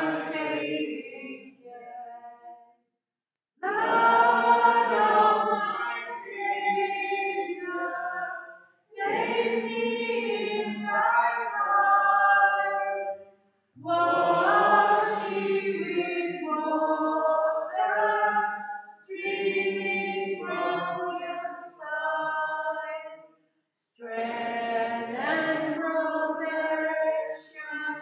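Choir singing a slow hymn in phrases of a few seconds each, with short pauses between them.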